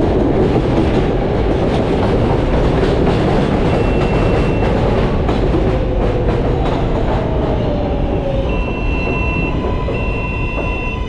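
L train subway car running on the rails: a steady rumble with repeated wheel clicks, and a motor whine that falls in pitch in the second half. Three short, high-pitched squeals come about 4 s in and twice near the end.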